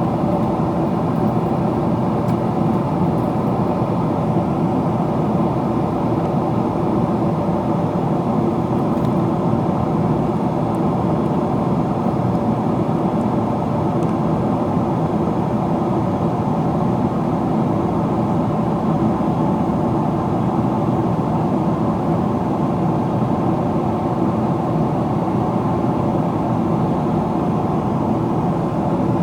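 Steady cabin noise inside a Boeing 777-300ER descending: the rush of airflow over the fuselage mixed with the hum of its GE90 engines, running evenly without change.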